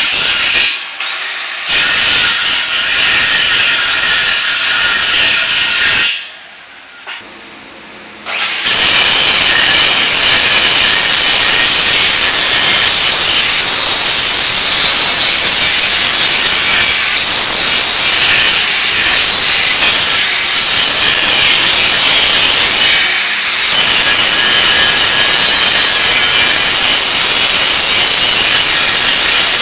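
Handheld angle grinder with its disc grinding steel square tubing: a loud, steady high whine with a hiss of the disc on metal. It falls away for a couple of seconds about six seconds in, then runs on steadily.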